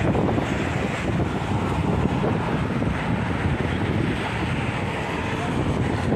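Wind buffeting the microphone over a steady wash of road traffic.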